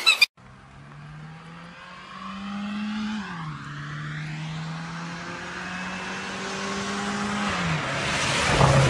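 Military off-road vehicle's engine accelerating as it approaches, the pitch climbing and then dropping at two gear changes and the sound growing louder. A louder rush of noise comes near the end as it reaches the crossing.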